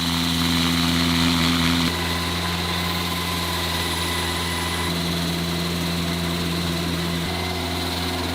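A 72-horsepower gas-powered slab saw running steadily: a low engine drone with a high, steady whine above it, the pitch shifting slightly about two seconds in.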